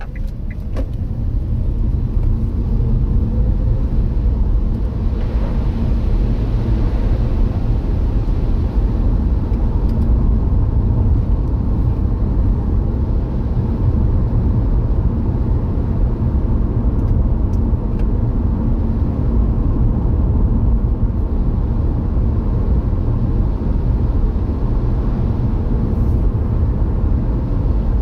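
Car cabin noise while driving on a wet road: a steady low engine and road rumble with tyre noise, heard from inside the car.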